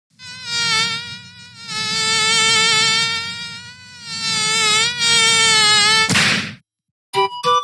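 Samsung SGH-E720 ringtone: a buzzing synthesized tone that wavers slightly in pitch, in three long stretches. It ends about six seconds in with a short hiss, and a few clicks follow near the end.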